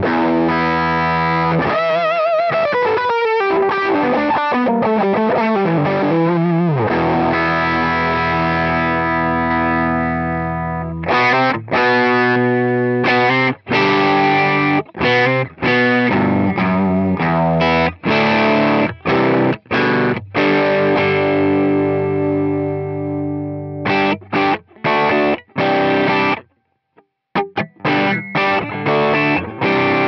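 Electric guitar, a PRS SE Custom 22 semi-hollow, played through the Sonicake Matribox II Pro's Dark Mouse distortion, its model of a ProCo Rat, into a Celestion cabinet IR. It opens with bent, wavering lead notes and a held chord, then moves to short chopped chords with gaps, ending in a few brief stabs.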